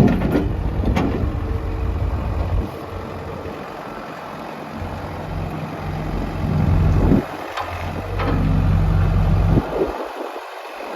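New Holland LB75B backhoe loader's diesel engine running, its note swelling and easing off a few times as it is put under load, then dropping back near the end.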